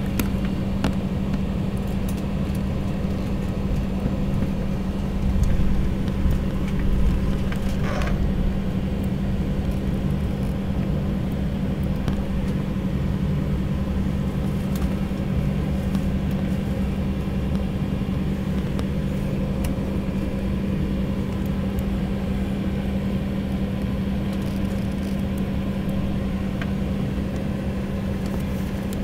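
Steady low rumble with a constant hum inside the cabin of an Embraer 190 jet airliner, its engines running.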